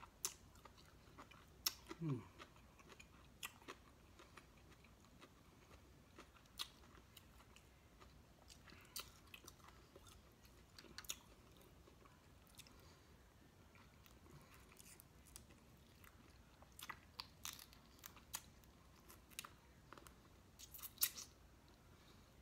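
Eating snow crab legs close to the microphone: scattered sharp clicks and cracks from the shells being handled and broken open, with soft chewing between them. The loudest flurry of cracks comes near the end.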